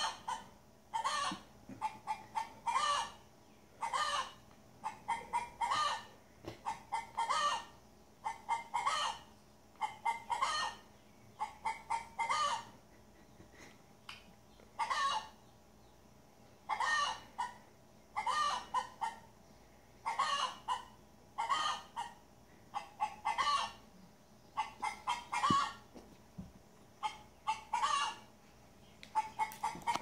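Chickens clucking in short repeated runs of calls, played back through a tablet's small speaker, with a couple of brief pauses along the way.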